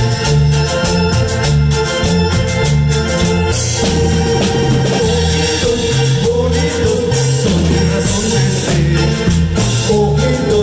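Cumbia band playing an instrumental passage: a sustained melody line over a repeating bass pattern and steady percussion.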